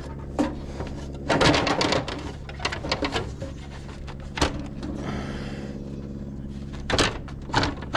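Sheet-metal side cowling of a Kubota BX compact tractor being bent and worked loose by hand: a run of clanks, scrapes and rattles, the busiest about a second and a half in, with single knocks later. A steady low hum runs underneath.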